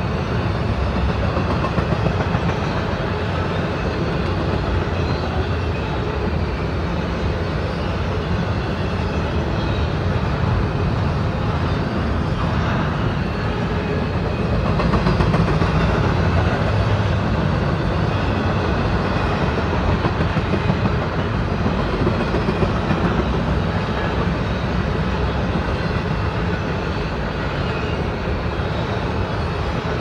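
Intermodal well cars of a freight train rolling past steadily, a continuous noise of steel wheels on rail with no break.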